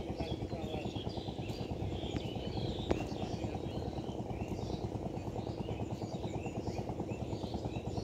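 An engine running steadily with a fast, even chugging pulse, while small birds chirp over it. A single sharp click about three seconds in.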